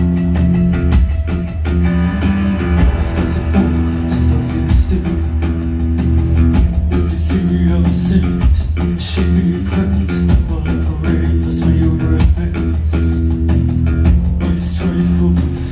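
Post-punk band playing live: drum kit with steady hits and cymbals, bass guitar holding long low notes, electric guitar and keyboards, heard from the crowd in a concert hall.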